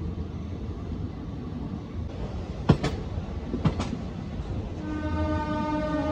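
DEMU (diesel multiple-unit) train rolling slowly with a steady low rumble, and two sharp clicks about a second apart as its wheels cross rail joints. Near the end a train horn sounds one long steady note.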